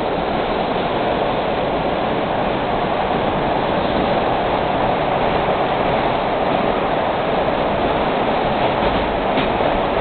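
Steady running noise inside a 1982 Kawasaki B-IV subway car under way: wheels on the rails and the car's motors, an even, unbroken noise.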